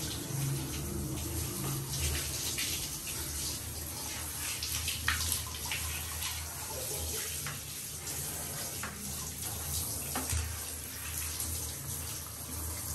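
Water running from a handheld shower head onto a small dog's wet coat in a bathtub, a steady spray with a few short sharp sounds.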